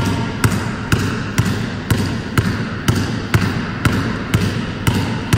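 Basketball dribbled one-handed side to side on a hardwood gym floor in a wide, low dribbling drill. It bounces steadily, about two bounces a second.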